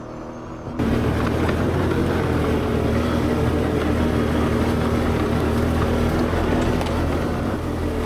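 V-twin ATV engine running steadily under way, with its drone and trail noise. The sound jumps suddenly louder and fuller under a second in.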